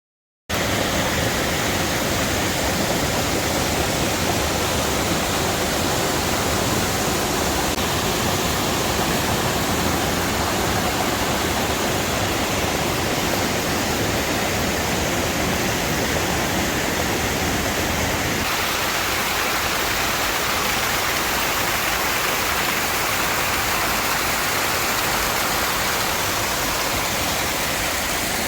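Waterfall: a steady, full rush of falling and splashing water that starts abruptly about half a second in. About two-thirds of the way through, the deep part of the rush drops away, leaving a thinner, hissier sound.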